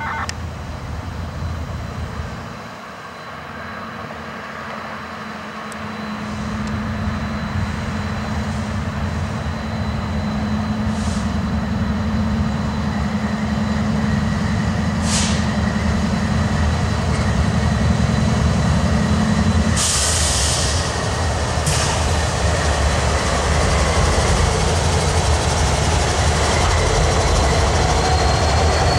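A Norfolk Southern GE C44-9W and EMD SD70M-2, both 16-cylinder diesel-electric locomotives, running under power as they pull a gondola freight past, growing steadily louder as they approach. A few short hisses cut in midway.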